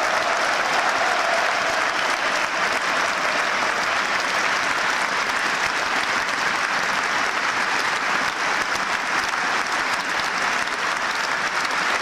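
A large stadium crowd applauding steadily: dense, continuous clapping with no break.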